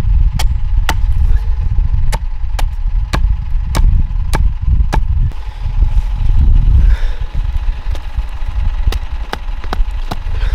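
Hatchet chopping a wooden stake to a point: sharp strikes about two a second, a break of a few seconds in the middle, then a few more strikes near the end. A steady low rumble runs underneath.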